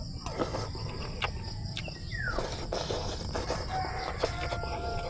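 A rooster crowing, with a short falling call about halfway through and a held note near the end, over a steady high insect drone. Short clicks and smacks of someone chewing a mouthful of rice eaten by hand.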